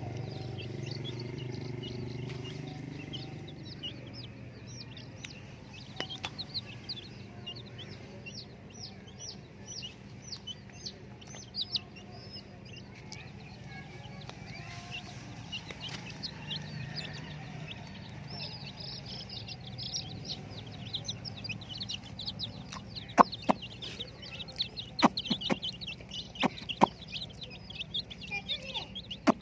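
A brood of chicks peeping, dense short high chirps one after another throughout. A few sharp taps or knocks come in the last several seconds.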